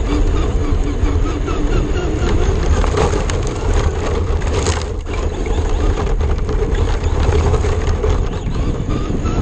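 Onboard sound of a Traxxas RC car driving fast over a rough road and gravel: a steady heavy low rumble of chassis vibration and wind on the car-mounted camera, with the tyres and drivetrain rattling. Sharp gravel clicks come through, the clearest about three seconds in and again near five seconds.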